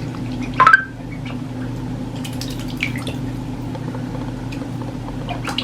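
Ducklings paddling and preening in shallow bath water: small drips and light splashes over a steady low hum. One brief, louder sound comes a little under a second in.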